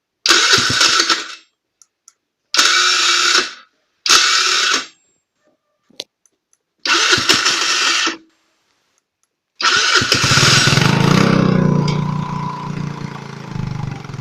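80cc ATV engine cranked on its electric starter in four short bursts without catching. On the fifth try it fires and runs for a few seconds, then slows and fades toward the end, as if about to stall.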